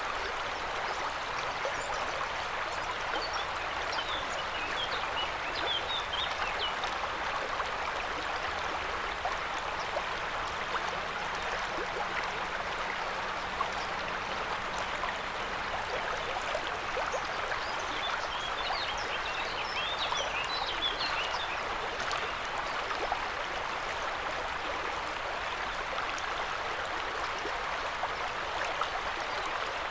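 River water running in a steady, unbroken rush. A few brief high chirps come through twice, a few seconds in and again past the middle.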